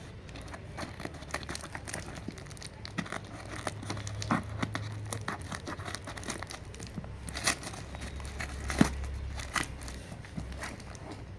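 A parcel being opened by hand: the packaging crinkles and tears, with many irregular crackles and snaps, the sharpest about 7.5 and 9 seconds in.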